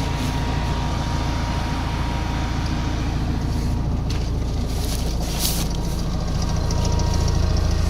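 BigBo all-terrain amphibious vehicle's engine running steadily, getting louder about two-thirds of the way through. A few short hissing sounds come in the middle.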